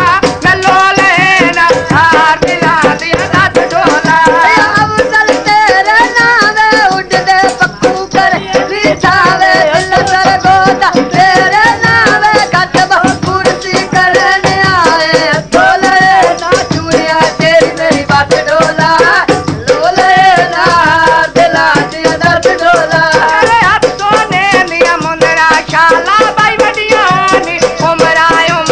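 Punjabi folk song (mahiye): a wavering, ornamented melody line, likely sung, over a steady drum beat and jingling percussion.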